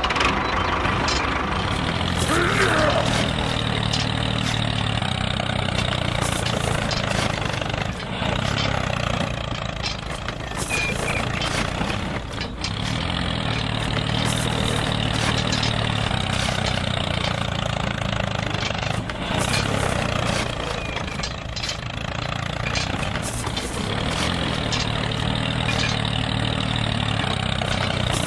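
Engine running with a steady low rumble, as of a tractor engine, dipping in level briefly a few times.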